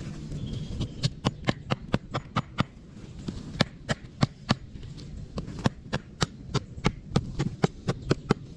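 A rapid series of sharp knocks, like something hard being struck again and again, in uneven runs of about three a second, over a low steady rumble.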